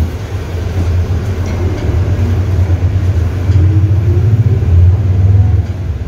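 Mercedes-Benz OM-924 LA four-cylinder inline diesel engine of an OF-1721L BlueTec 5 bus, running with a deep, steady rumble. About three and a half seconds in it grows louder, with a rising note as it picks up revs.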